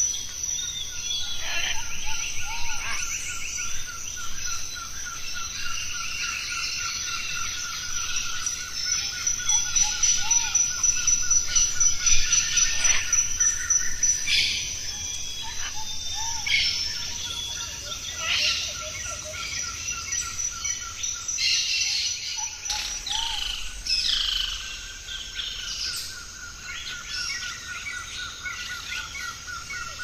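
Rainforest soundscape: many different birds calling and chirping in short phrases over a steady high insect drone and a rapidly pulsing trill.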